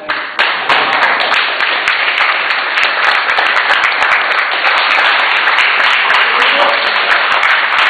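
A crowd suddenly breaks into loud cheering, shouting and clapping, which keeps up without a pause.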